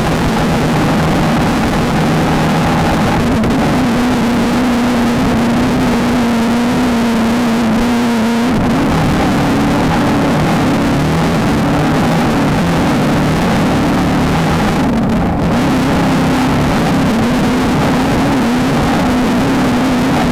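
Engine of a Volkswagen Beetle-based desert off-road race car running hard at fairly steady revs over a constant rush of noise. About eight seconds in the note briefly drops, then wavers up and down.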